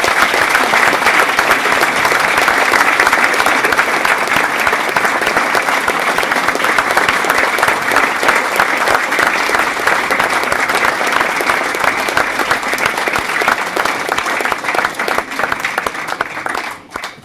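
A large audience applauding, many hands clapping in a loud, dense, steady patter that dies away just before the end.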